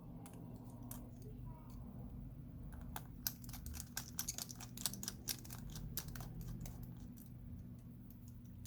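Rapid light clicks and taps of a small Phillips precision screwdriver working tiny screws out of a phone's metal frame, clustered in the middle, over a low steady hum.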